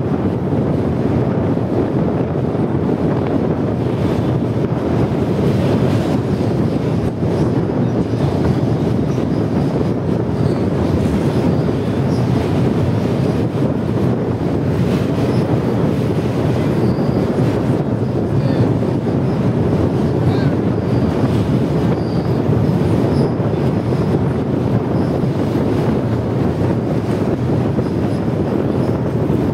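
Passenger train running across a steel truss rail bridge, heard from inside the carriage: a steady, unbroken noise of wheels on rails.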